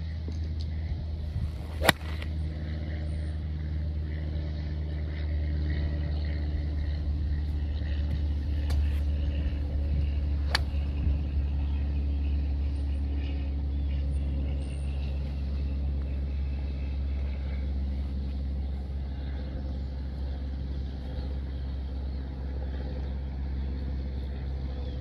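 Golf club striking balls at a driving range: one sharp crack about two seconds in and two fainter cracks later, over a steady low rumble.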